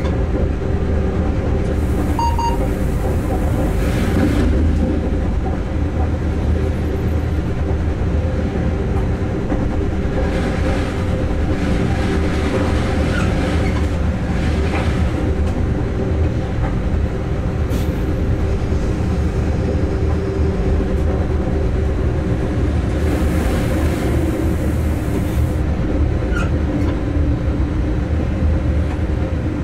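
Locomotive running along the line, heard from its cab: a steady low drone of the machinery together with wheel-on-rail rumble. Three stretches of louder hiss rise over it, one soon after the start, a longer one in the middle, and one about three-quarters through.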